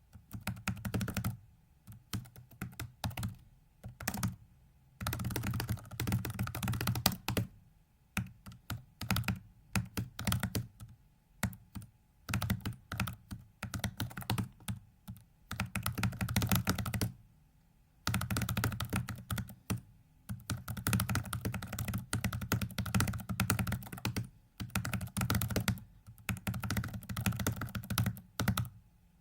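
Computer keyboard typed on very fast: dense runs of keystrokes a few seconds long, broken by short pauses every few seconds, as key presses turn a 4x4x4x4 virtual hypercube during a speedsolve.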